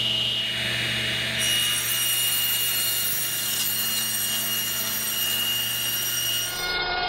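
Table saw running at full speed with a steady high whine, while a wooden board is pushed through the spinning blade. The sound changes abruptly near the end.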